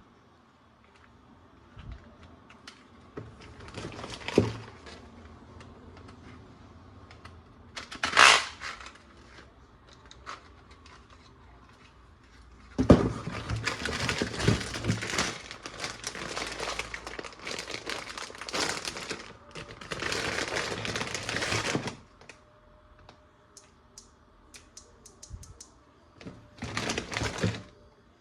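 Plastic toy guns and their packaging being handled: scattered clicks and snaps, with long stretches of rustling and crinkling.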